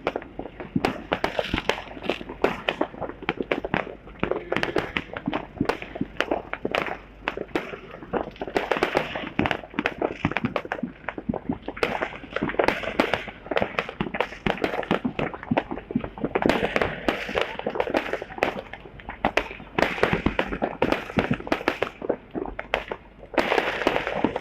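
New Year fireworks going off in a dense, continuous barrage: many sharp bangs and crackles each second, overlapping, with no pause.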